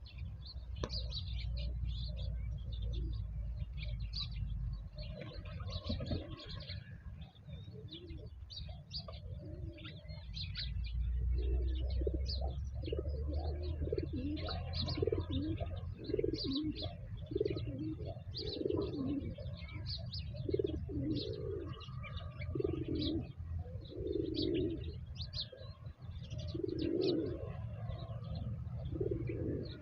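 Doves cooing, a low call repeated about once a second from about ten seconds in, over steady chirping of small birds; a low rumble runs underneath.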